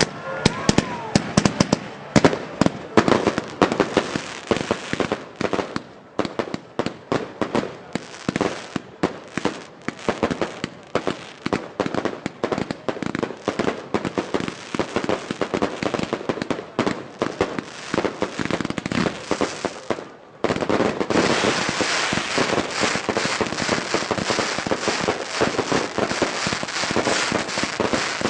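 Fireworks going off in rapid succession, a fast run of bangs and pops. About twenty seconds in they stop for a moment, then a denser, almost unbroken run of bangs follows.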